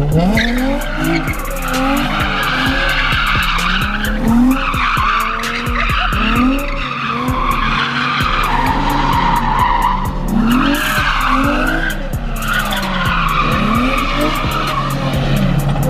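A car drifting in circles: its engine revs rise and fall about once a second, under continuous tyre screech that drops out briefly a few times.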